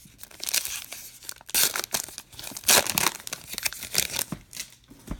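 A baseball card pack's crimped wrapper being torn open and crinkled by hand, in irregular crackling bursts with the loudest tears about one and a half and nearly three seconds in.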